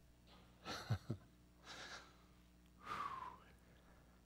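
A man's breathing in a pause of speech: a few soft breaths and a short sigh-like exhale with a faint falling whistle about three seconds in.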